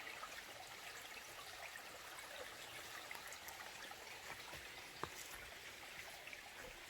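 A small creek trickling steadily and faintly, with one short click about five seconds in.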